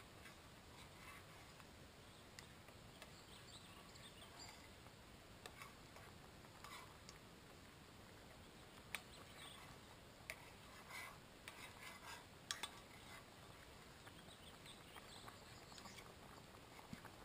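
Faint scraping and clinking of a metal spoon stirring in a steel cooking pot, with a few sharper clicks about nine and twelve seconds in, over near silence.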